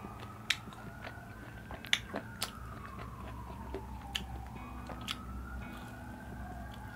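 Close-miked chewing and crunching of Korean fried chicken, with sharp crunches scattered through. Under it a siren wails, its pitch slowly rising and falling, each sweep taking several seconds.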